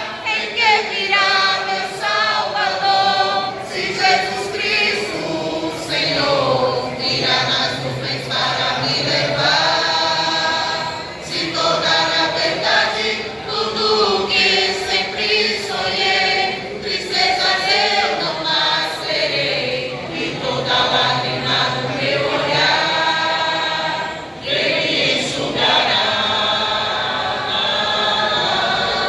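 A church vocal group singing a worship song together in harmony, as a choir of voices, with a brief pause between phrases near the end.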